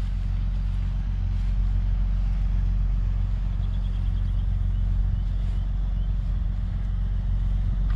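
Steady low rumble of wind buffeting the camera microphone, with a short run of faint high chirps about four seconds in.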